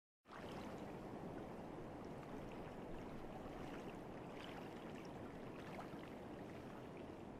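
Faint, steady harbour ambience: an even low rumble of water and distant boats, with a few faint clicks, fading in just after the start.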